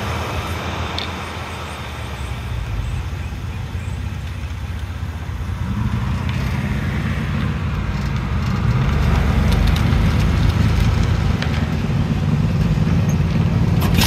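Car engine and exhaust drone under acceleration over road and wind noise, growing louder and stepping up in pitch about halfway through.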